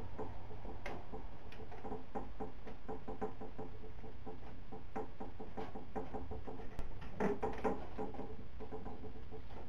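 Cats playing on a wooden rocking chair and table: a busy run of soft, irregular taps and scuffles, with a louder cluster about seven seconds in.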